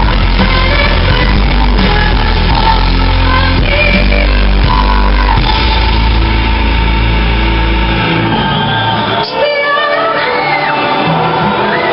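Live symphonic metal band playing loud, with bass, guitars and drums under a female lead vocal. About eight seconds in the heavy low end drops out, leaving the voice over lighter backing.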